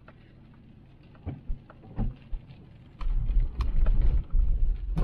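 Vehicle bumping along a washed-out dirt road: a couple of low thumps, then from about three seconds in a loud continuous low rumble with knocks as it jolts over the rough ground.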